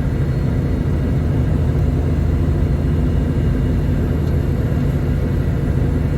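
Road train's diesel engine pulling steadily under load on a hill climb: a constant low rumble with a steady engine hum that holds its pitch throughout.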